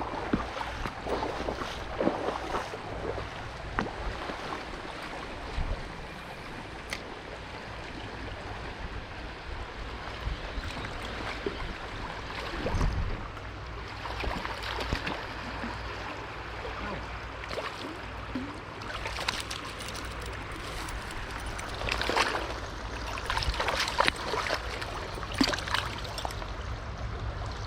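Small trout stream flowing: a steady rush of running water, with a few brief louder splashes in the last third.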